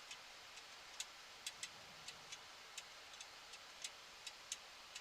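Faint steady hiss with irregular sharp ticks, about three a second, loudest about a second in and near the end.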